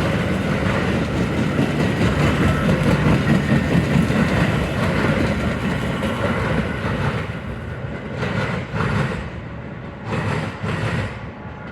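Metra commuter train passing close by, its cars' wheels clacking over the rail joints with a heavy rushing noise. The sound dies down after about seven seconds as the train moves off, with a few short surges of rushing noise near the end.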